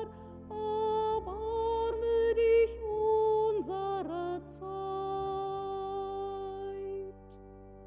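A woman singing a slow liturgical chant solo, holding long notes with small glides between them, over low sustained instrumental notes. The sung line ends on a held note about seven seconds in.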